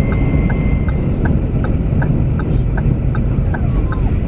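Pickup truck cabin while driving: steady engine and road rumble, with a turn-signal clicker ticking about two to three times a second. A steady high tone stops about a second in.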